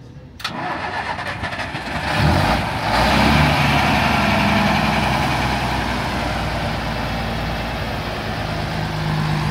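A bus's diesel engine starts with a louder surge about two seconds in, then runs at a steady idle.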